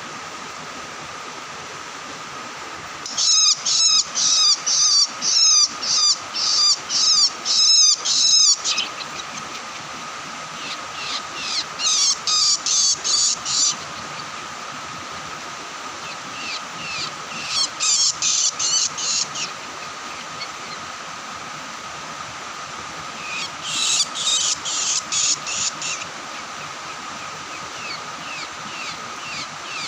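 Ciblek sawah (plain prinia) singing: four phrases of fast, high, repeated chipping notes, each a few seconds long with pauses of several seconds between, over a steady thin background whine.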